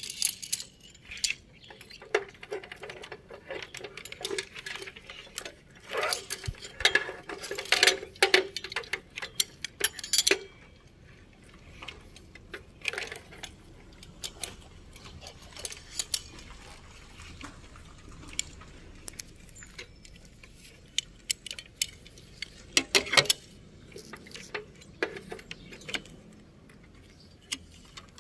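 Irregular metallic clicks, clinks and jangles from an installer's tools and gear as he works on a utility pole. They come in busy clusters in the first ten seconds and again a little after twenty seconds, and are sparser in between.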